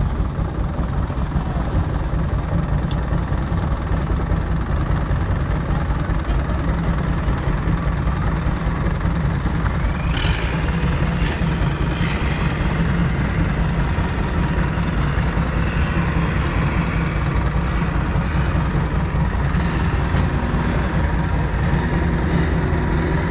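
Long-tail boat engine running steadily under way, a loud low drone, with its propeller churning the water.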